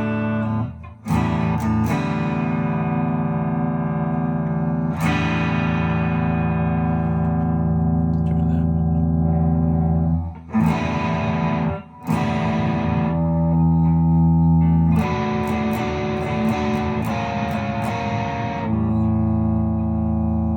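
Electric guitar played through a StewMac Ghost Drive overdrive pedal, a Klon-style overdrive: slow chords with mild distortion, each strummed and left to ring for several seconds. New chords come in about a second in, around five seconds, twice near the middle and again about three-quarters of the way through. This is the first test of the freshly built kit pedal.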